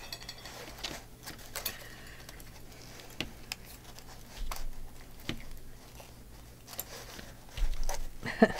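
Scattered light clicks and taps of steel pliers working a metal wire binding, with papers being handled, and louder handling sounds near the end.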